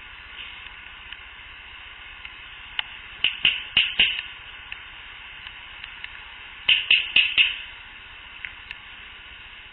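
Sharp clicks or pops in two quick series of about four each, a few seconds apart, over the steady hiss of a field recorder. The recordist counts them among the "mouth sounds" she attributes to Sasquatch.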